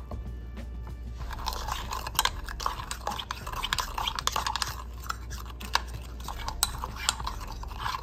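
Metal spoon stirring hot cocoa in a ceramic mug, clinking and scraping against the sides in quick irregular clicks, starting about a second in.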